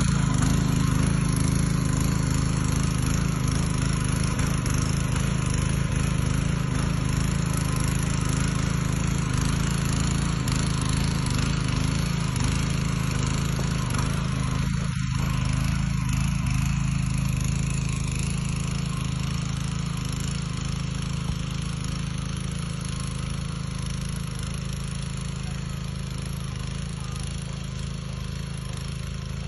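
Walk-behind power weeder (rotary tiller) engine running steadily under load as its blades till the soil, gradually getting a little quieter in the second half.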